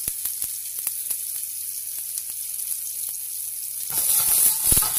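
Cherry tomatoes sizzling in a frying pan over a gas flame, with a few light clicks of a fork against the plate. About four seconds in the sizzling gets louder as the pan is handled, with a low knock.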